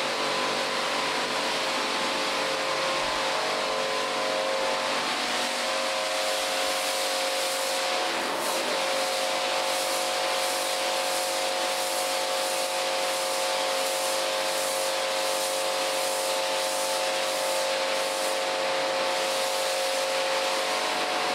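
Kärcher cleaning machine running steadily on the cellar floor: an even rushing with a constant motor whine.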